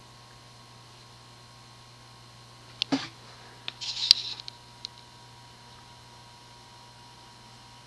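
Steady low hum with a faint high whine. About three seconds in come two sharp clicks, then a brief rattle with several more clicks, the loudest about a second later.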